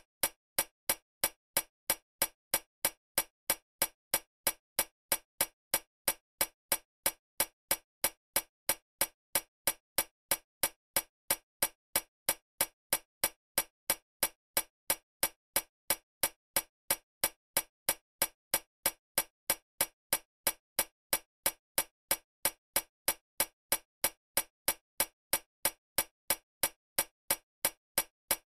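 Sharp, evenly spaced ticking, a little over three ticks a second, keeping a steady, unchanging beat.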